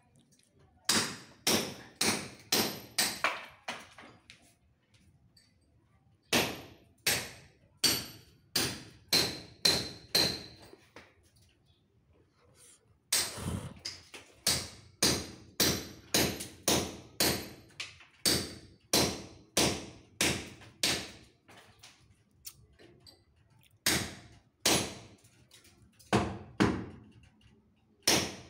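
Hammer blows breaking up an old plastered brick wall for renovation. The sharp strikes come about two a second in runs of several, with short pauses between runs, and some leave a brief metallic ring.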